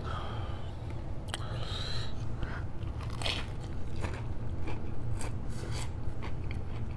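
Close-miked biting into a fried chicken finger sandwich smothered in sauce, then open-mouthed chewing with many short crunchy, crackly clicks.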